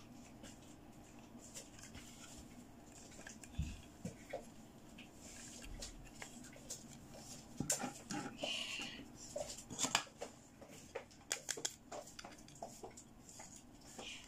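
Small plastic doll-furniture parts clicking, tapping and rubbing as a miniature chair's backrest and seat are fitted and snapped together. The clicks come thickest in the second half, with a brief high squeak about eight and a half seconds in.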